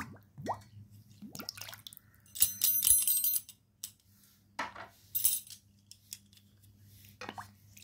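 Water splashing and sloshing as small clay pots are rubbed and rinsed by hand in a steel bowl. A burst of ringing clinks, clay knocking against the steel, comes about two and a half seconds in, followed by a couple of sharp splashes around five seconds. A faint steady hum runs underneath.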